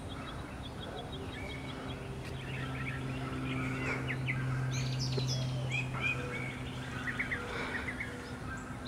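Several songbirds chirping and singing, many short notes and whistles overlapping, over a steady low hum that grows louder in the middle and eases off near the end.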